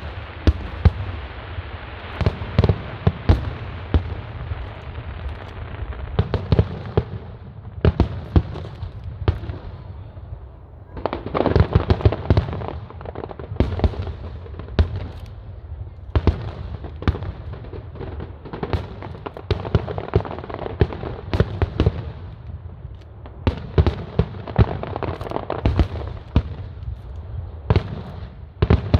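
Aerial fireworks display: a rapid, continuous series of bangs and booms, growing denser and louder at times.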